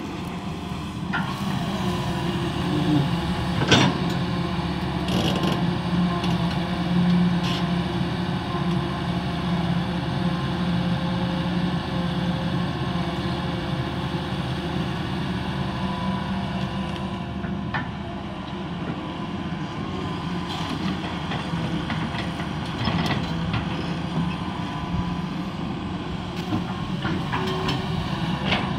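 Hitachi crawler excavator's diesel engine running steadily as it digs, with occasional knocks and clanks from the bucket and the moving earth.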